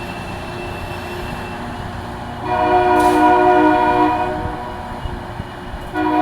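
Loram rail grinder's air horn sounding a chord in a blast of about two seconds, beginning about two and a half seconds in, and again starting near the end, over a steady mechanical rumble from the train.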